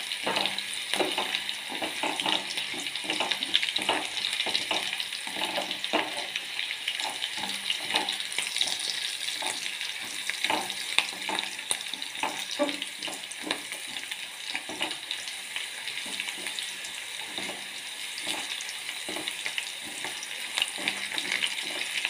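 Sliced garlic, green chillies, dried red chillies and curry leaves sizzling in hot oil in a stainless steel pot, with a wooden spatula scraping and tapping against the pot again and again as they are stirred. The steady sizzle is the sauté going on until the garlic browns.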